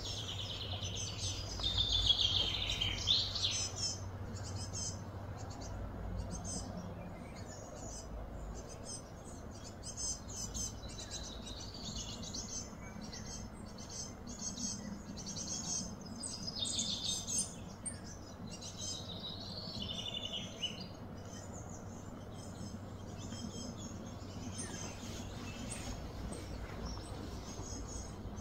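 Birds chirping and calling in quick high trills and twitters, over a steady low background hum.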